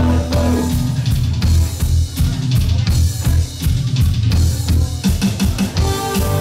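Live rock band playing an instrumental passage without vocals: drum kit to the fore with bass drum and snare hits over electric bass and electric guitars. Held chords come in near the end.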